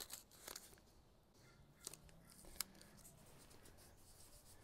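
Near silence with a few faint clicks and rustles as blue painter's tape is handled and pressed onto the metal ramp rail.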